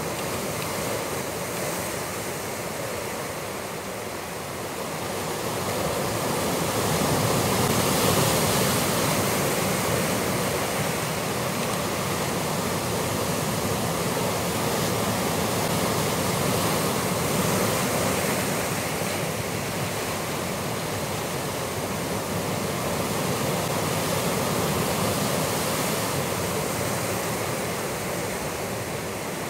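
Sea surf breaking against rocks: a continuous rushing wash that swells louder about six seconds in and stays up.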